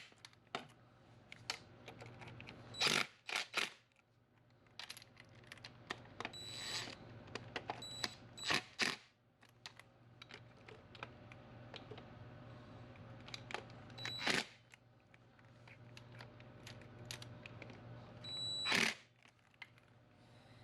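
Metal tools and parts clinking and clanking at irregular intervals, with a few louder clanks, some ringing briefly.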